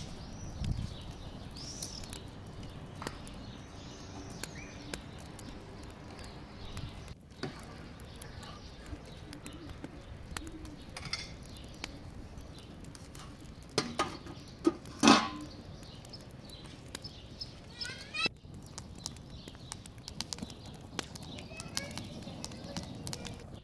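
Wood fire crackling under a pan of pilaf on a small outdoor stove, with birds chirping now and then. About fifteen seconds in comes one loud clank, fitting the metal lid being set on the pan.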